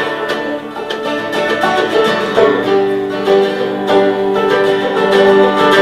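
Live acoustic band music: plucked string instruments picking over long held chords in a slow country-style song.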